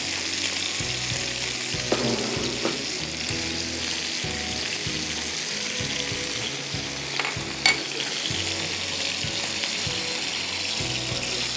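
Fish frying in butter in a cast-iron skillet, a steady sizzle, with a few sharp clicks of a metal spoon against the pan as the hot butter is spooned over.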